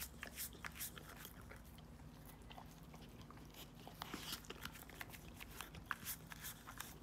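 Golden retriever puppy licking ice cream out of a paper cup: quick, wet smacking and lapping clicks of tongue and mouth. They thin out for a couple of seconds in the middle and come thick again near the end.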